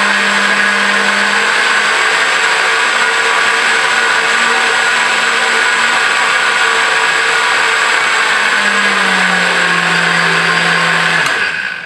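Cleanblend 3-horsepower heavy-duty blender running loud and steady, blending a thick fruit smoothie. Near the end it is switched off and the motor winds down quickly.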